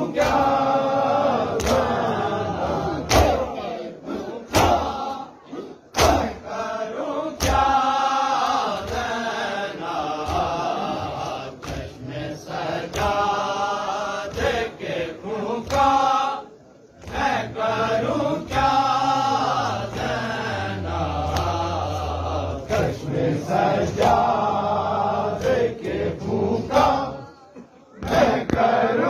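A crowd of men chanting a nauha (Shia mourning lament) together, with sharp chest-beating slaps (matam) about every second and a half, closer together in the second half.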